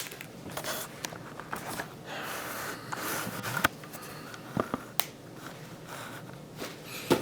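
Soft handling noises from unboxing: light rustling of packaging with a few small clicks and taps as items are moved about.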